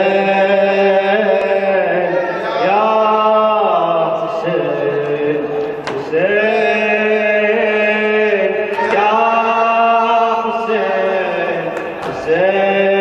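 A solo male voice chanting a Shia mourning lament (latmiya) unaccompanied, in long drawn-out phrases of about three seconds each with brief breaths between them.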